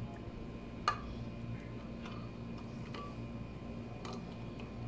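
Metal spoon clinking a few times against a ceramic bowl while stirring tomato paste into liquid, the loudest clink about a second in, over a low steady hum.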